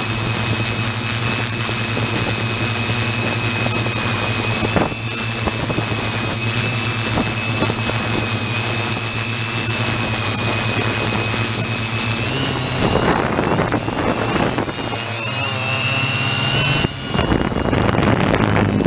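Small camera drone's electric motors and propellers running with a steady high whine, heard from the onboard camera; the pitch shifts and wavers in the last several seconds as it manoeuvres.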